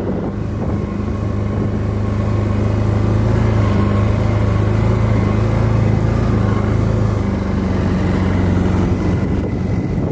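Engine of a small off-road vehicle running at a steady speed while driving through snow, a continuous low drone that grows a little louder about two seconds in and eases slightly in the last few seconds.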